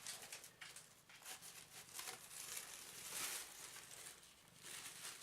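Faint rustling and crinkling of parcel packaging, a run of quick light scratches with a louder rustle about three seconds in, as a kitten noses and paws into the opened package.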